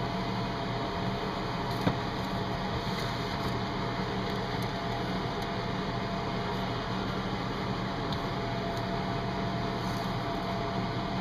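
Steady background hum and hiss, like a fan or appliance running, with a low drone; a single faint click about two seconds in.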